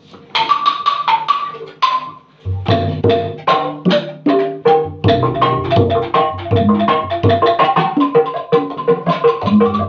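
Sundanese calung ensemble playing: struck bamboo tubes ring out separate pitched notes, and a kendang drum comes in about two and a half seconds in under a steady, busy rhythm.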